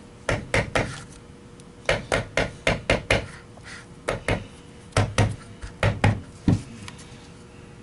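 Rubber mallet tapping the plastic housing of a Miele vacuum motor, seating the motor's parts evenly on reassembly. About twenty light taps come in quick groups of two to six, with short pauses between.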